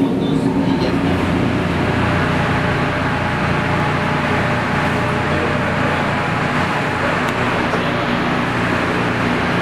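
Steady fan noise in a commercial kitchen: an even whooshing rush with a faint low hum under it.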